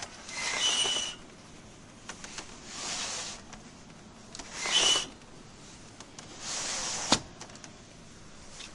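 Hotel window sliding in its frame four times, each slide a scraping rush lasting about a second, two of them with a short high squeal. The last slide ends in a sharp knock.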